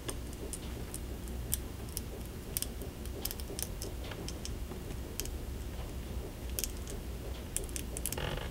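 Light, irregular ticks and clicks of a hobby knife blade picking at wax paper, prying a freshly glued miniature rope bridge loose, over a steady low hum.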